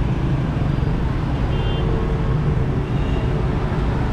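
Steady low rumble of road traffic and vehicle engines, with a brief high tone about a second and a half in.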